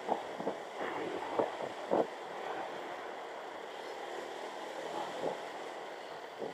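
Wind buffeting the microphone on a moving vehicle, over a steady rush of road and engine noise, with a few sharp gusts in the first two seconds and another near five seconds.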